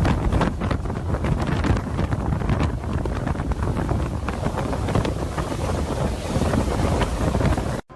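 Hurricane-force wind buffeting the microphone in loud, gusting roars, heaviest in the low end. It cuts off suddenly just before the end.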